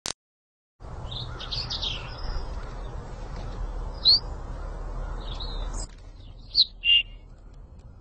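Small songbirds chirping in short, high calls over a steady low outdoor background, which drops away just before six seconds in. The loudest chirps come singly, one about four seconds in and two more close together near the end.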